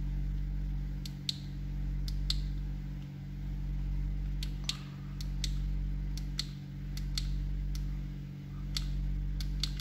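Push-to-talk button of a Redell UV99 Plus handheld radio pressed repeatedly, giving about a dozen sharp clicks, some in quick press-and-release pairs, as a test of a button that had stopped registering presses. A steady low hum runs underneath.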